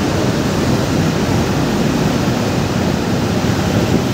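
Steady low noise of traffic driving through a road tunnel: engines and tyres on a wet road, with a large truck running alongside.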